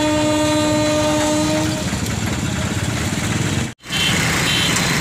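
Electric locomotive passing a level crossing with its horn sounding one steady note that stops about two seconds in, over the rumble of the train. The sound cuts out briefly near the end, then a two-wheeler's engine idles.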